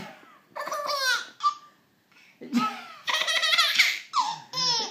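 Seven-month-old baby girl laughing in high, rapid bursts as she is held and lifted up in the air: a short bout, a brief pause, then a longer stretch of laughter.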